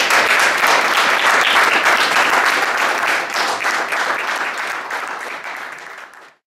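A small crowd applauding, dense clapping that slowly fades toward the end and then cuts off abruptly.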